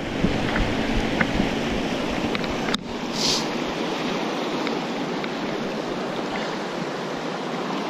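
Steady rush of a fast-flowing creek, with one sharp click a little under three seconds in.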